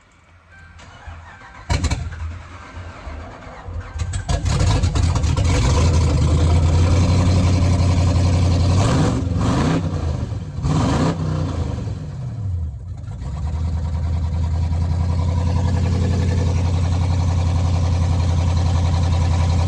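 Car engine started about two seconds in, revved up and down twice, then idling steadily. The engine has a misfire on cylinder 1.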